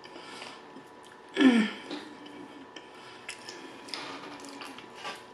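Quiet eating and mouth sounds with a few faint clicks, and one short voiced 'mm' with a falling pitch about a second and a half in.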